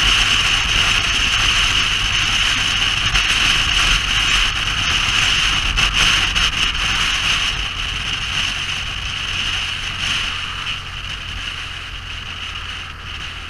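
A vehicle engine running steadily under a strong hiss of rushing air, the whole sound easing off somewhat over the last few seconds.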